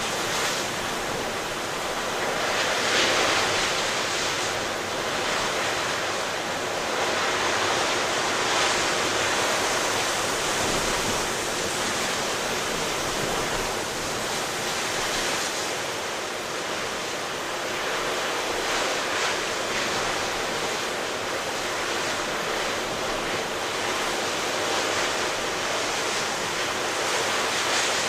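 Rough ocean surf breaking continuously in strong wind, a steady rush of water that swells and eases every few seconds.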